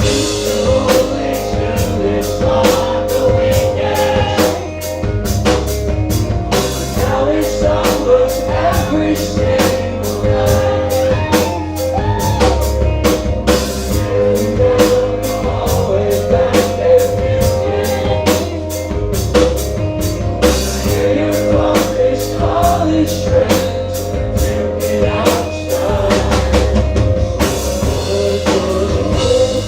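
Live rock band playing loudly, the drum kit keeping a steady, fast beat with bass drum and cymbal hits over held instrument notes.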